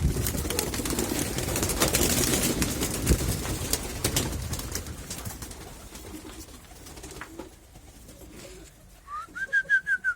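Baku pigeons cooing, over a noisy rustle and clatter that fades away over the first half. About nine seconds in comes a quick run of about eight short, high chirping notes.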